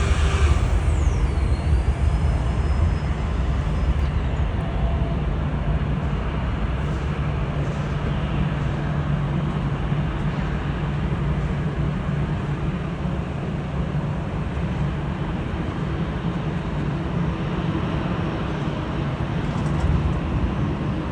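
Low, steady jet rumble of a departing Boeing 777-200 airliner's engines. A faint high whine glides down and levels off in the first few seconds.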